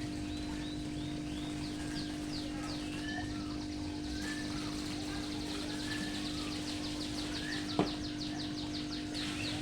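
Several songbirds chirping, with short downward-sweeping calls and, in the middle, a fast trill of repeated notes at about six a second. A steady low hum runs underneath, and a single sharp click sounds near the end.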